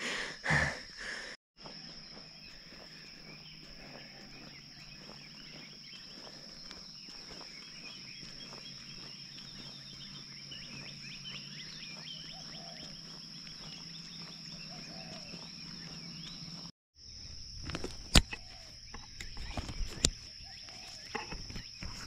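Rural roadside ambience with a steady high-pitched insect trill. In the last few seconds come footsteps and rustling in grass, with a few sharp clicks.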